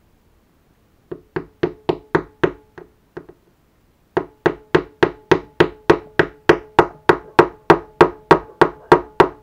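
Rapid taps of a metal table-knife handle on a small plastic toy-kit part, driving it further along its thin metal shaft. About seven taps, a short pause, then about twenty more at roughly four a second, each with a brief ringing tone.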